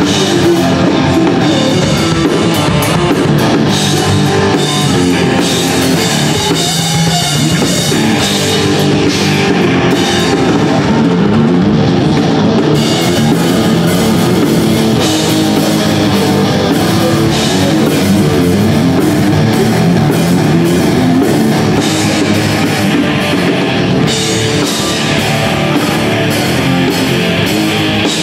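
Live alternative rock band playing loudly, drum kit and electric guitar driving a steady rock groove.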